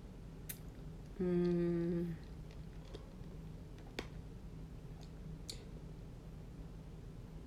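A woman's short closed-mouth hum, one steady "mmm" held for about a second near the start, with a few faint clicks later.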